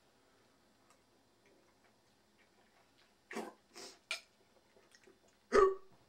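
A person's hiccup: one loud, abrupt throat sound with a low thump near the end, from someone whose throat is burning from very spicy noodles. About three seconds in come a few short, clicking, noisy sounds.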